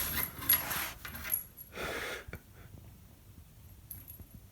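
Rustling, scuffling and light clicks of a cat playing, grabbing and batting at a hand, with a short breathy puff about two seconds in, then faint and quiet.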